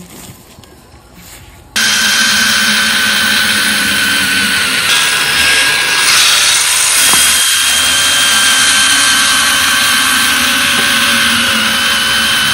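Matchstick factory machinery running loudly and steadily, with a whirring noise and a steady high whine, starting abruptly about two seconds in.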